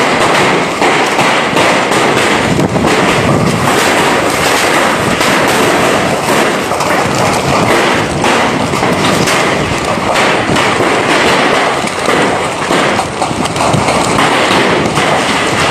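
Heavy hailstorm: a loud, dense clatter of hailstones pelting the ground and nearby surfaces, with countless small impacts running together.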